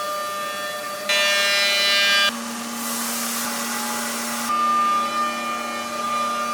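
CNC milling machine cutting metal: a steady high whine with several pitched overtones over a hissing cutting noise, the pitch and tone changing abruptly three times.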